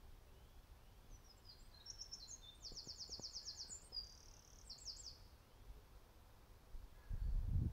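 A small songbird sings one song of about four seconds: quick high notes that run into a fast trill of repeated notes, then a few closing notes. A low rumble sets in near the end.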